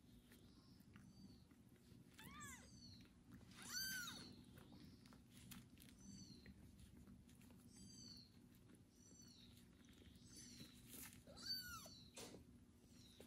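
Young kitten giving a series of about seven short, high-pitched meows, each rising and falling in pitch, the loudest about four seconds in. The owner reads this constant meowing as a call for a mother's warmth and affection, not hunger.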